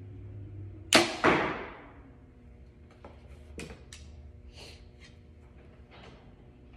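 Elite Ritual compound bow shot off a thumb release: a sharp snap of the string about a second in, then a second thud about a third of a second later as the arrow strikes the target. A few light clicks follow as the bow and a fresh arrow are handled.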